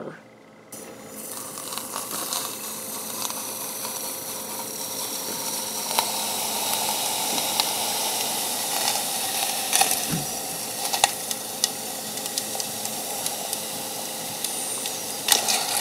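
Liquid propellant from a canned-air duster spraying into a plastic cup of water: a steady hiss that starts about a second in and swells, as the liquid boils off and freezes the water to ice. A few sharp ticks sound over it.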